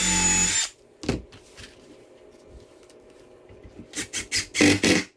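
Cordless drill running into wood with a steady high whine, stopping sharply under a second in. A knock follows, and a few clicks and knocks near the end.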